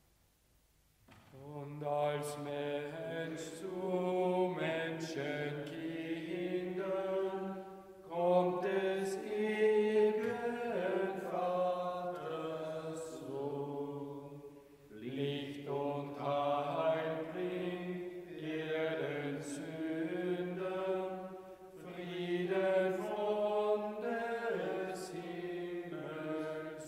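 A congregation singing a slow German Advent hymn in a church, starting about a second in. The hymn moves in long phrases with short breaths between them, roughly every six to seven seconds.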